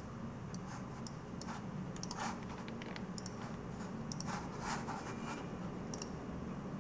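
Computer mouse clicking and sliding on the desk: a scatter of light clicks and a few short scrapes over a low steady hum.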